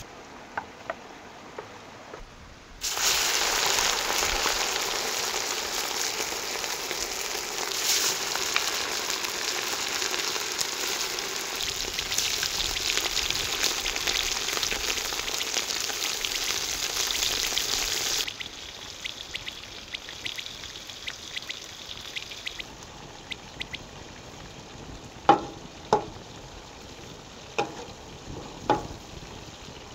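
Lamb frying in hot oil in a cast-iron kazan: a loud, steady sizzle that starts suddenly about three seconds in and drops to a quieter sizzle after about eighteen seconds. Near the end come four short, sharp knocks as a wooden spatula stirs the pot.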